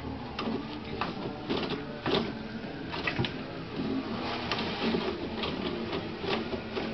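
Toilet paper roll turning and rattling on its holder while a cat pulls and tears at the paper: an irregular run of clicks and papery rustling.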